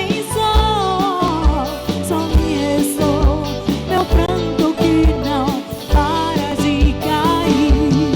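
Live band music: a wavering melodic lead line over a steady drum beat and bass.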